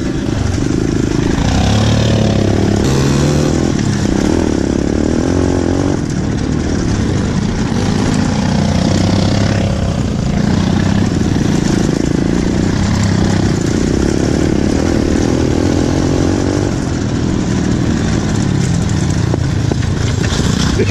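Pit bike engine revving up and down as it is ridden, heard close, with wind noise on the microphone.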